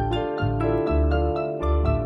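Instrumental music: a run of bright notes that start sharply and fade quickly, over deep bass notes that change about every half second.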